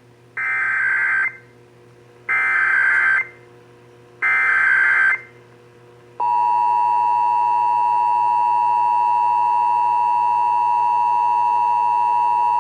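Emergency Alert System SAME header: three short bursts of warbling digital data, each about a second long and about two seconds apart. About six seconds in comes the steady, loud two-tone EAS attention signal, which announces the Required Monthly Test.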